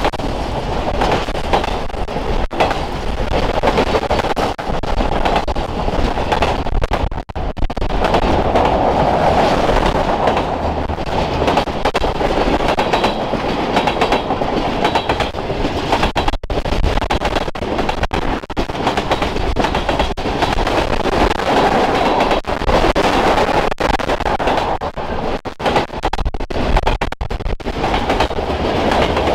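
Norfolk Southern freight train cars (autoracks, tank cars, covered hoppers) rolling past close by: a loud, steady rumble of steel wheels on the rails.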